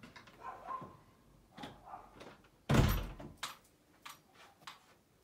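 A door shutting with a heavy thud about halfway through, followed by a few light clicks.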